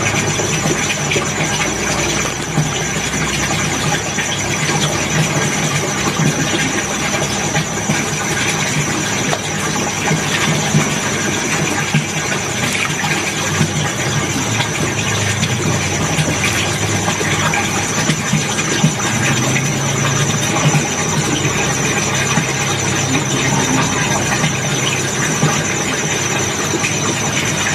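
Small motor running steadily, with a low hum and a thin high whine.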